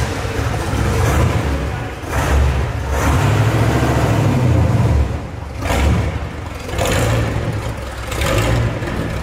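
Chevrolet Corvette C2 Stingray's V8 engine running as the car drives off, the exhaust note swelling and dropping several times with the throttle.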